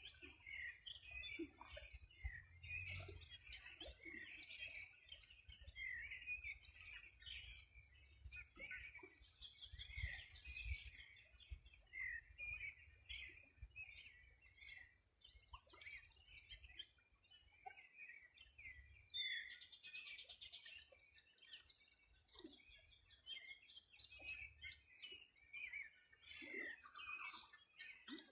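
A chorus of many small birds singing and chirping together at dawn, with short overlapping calls and trills that come thick and fast.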